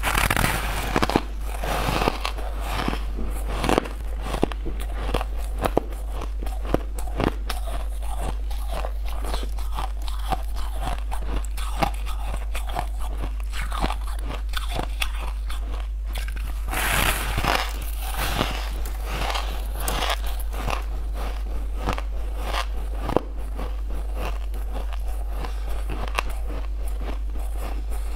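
Crunching and chewing of frosted sweet ice blocks, bitten and crushed between the teeth close to the microphone. Crisp cracks come one after another throughout, with heavier flurries of crunching near the start and again a little past halfway.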